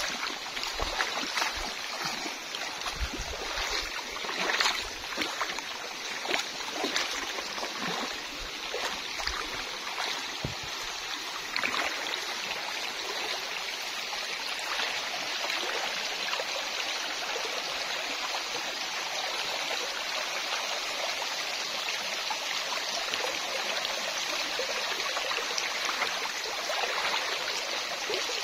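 Shallow river water rushing steadily over stones. In the first dozen seconds, irregular splashes come from someone wading through the water.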